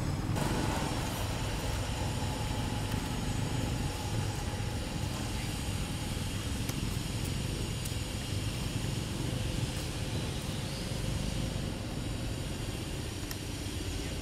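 Steady outdoor background noise with a low rumble, and a few faint clicks.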